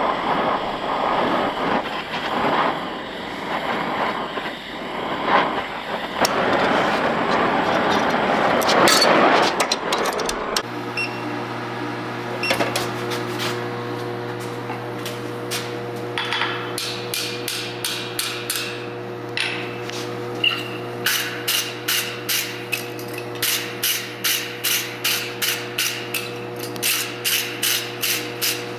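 Blacksmith's hammer striking steel on an anvil: ringing blows over a steady hum, coming about two to three a second near the end. Before that, for the first third, there is a steady rushing noise that cuts off suddenly.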